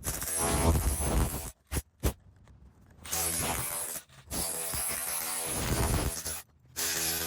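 Motorised cutting machine running and cutting into the asphalt court surface: a loud, rough mechanical hiss with a motor hum beneath it, in four bursts that stop and start abruptly.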